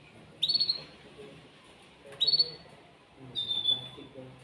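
Male canary singing in three short bursts of rapid high trills, the last ending in a held whistled note.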